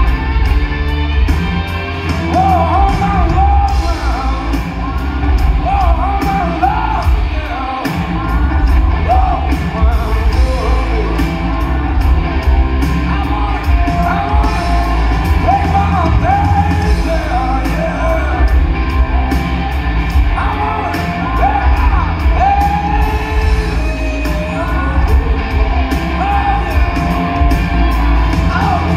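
A rock band playing live in a large hall: singing over electric guitars, heavy bass and drums.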